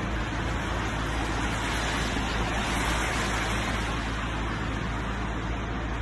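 Steady street traffic noise, a vehicle passing and swelling louder about halfway through, with tyres on a wet road.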